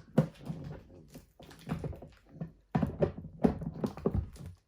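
Knocks and clatter of hard plastic as a children's potty chair is handled and a part of it is taken off.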